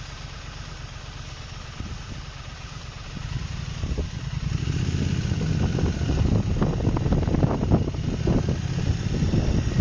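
Motorcycle engine idling at a standstill, then getting louder as the bike pulls away from about four seconds in.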